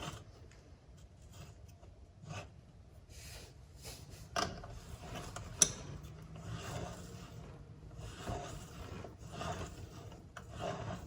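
Bicycle pedal being screwed clockwise into the right crank arm of an electric bike: faint rubbing and scraping of the threads, with scattered light clicks and one sharper click about five and a half seconds in.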